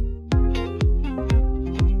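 Electronic dance music with a steady four-on-the-floor kick drum, about two beats a second, under sustained synth chords.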